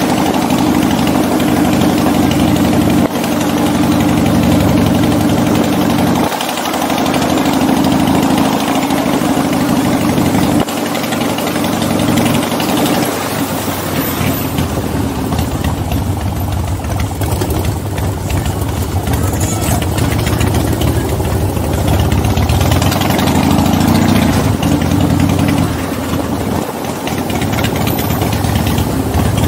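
V-twin cruiser motorcycle engine running under way, with several abrupt changes in the engine note in the first dozen seconds, then a steadier, lower note.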